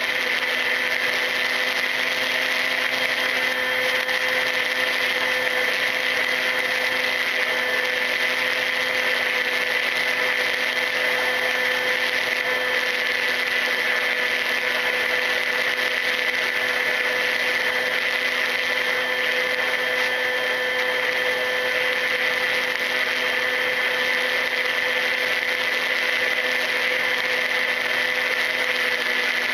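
Volantex Ranger EX FPV plane's electric motor and propeller whining at a steady, unchanging pitch in cruise, recorded by the onboard camera, with a constant hiss beneath.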